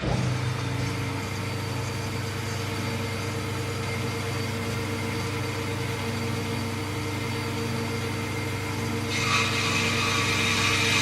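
Behringer HBP 360 A CNC automatic metal-cutting band saw starting up abruptly and running with a steady mechanical hum. About nine seconds in, a louder higher-pitched hiss joins.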